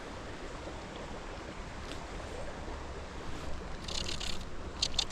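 Steady rush of moving water, with short splashy hisses about four seconds in and again near the end.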